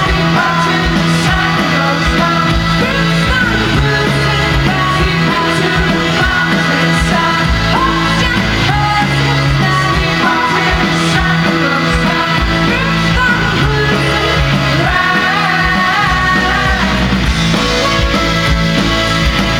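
Indie-folk band playing a song live, full band with singing over a steady loud backing; the melody comes forward near the end.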